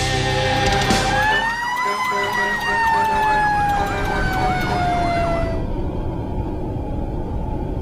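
Emergency vehicle sirens: a wail that rises, then slowly winds down while a fast yelp warbles over it, stopping about five and a half seconds in. Music plays before it and as a steady bed after it.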